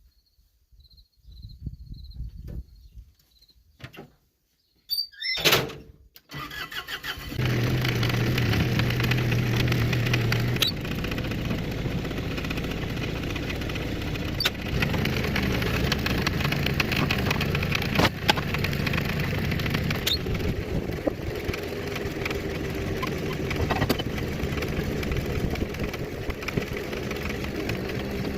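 A skid loader engine is started about six seconds in and then runs steadily, with a few sharp metal clanks over it.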